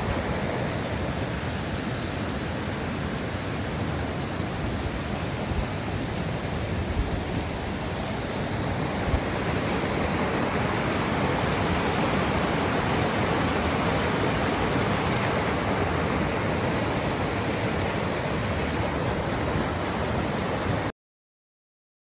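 Creek water rushing steadily over rocks and small cascades. It stops abruptly near the end.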